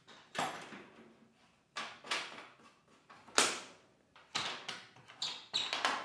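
Electric kiln's door handle and clamps being worked and the heavy door opened: a run of sharp knocks and clicks, the loudest about halfway through, coming closer together near the end.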